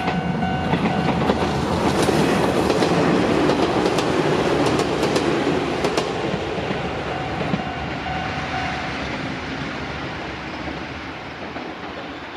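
Electric train passing over a level crossing, its wheels clacking over the rail joints, loudest in the first half and then fading as it pulls away. The crossing's warning bell dings at the start, is drowned out by the train, and is heard faintly again before it stops about nine seconds in.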